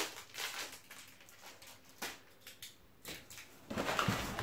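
Cardboard rustling and scraping as a large shipping box is opened by hand: a few short rustles, then louder, steadier scraping and rubbing of cardboard from about three and a half seconds in.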